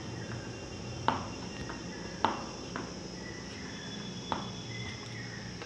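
Four sharp clicks at uneven intervals as a wire-wrapped steel spanner and the test leads are handled on a tabletop, over a steady low hum, with faint high chirping in the background.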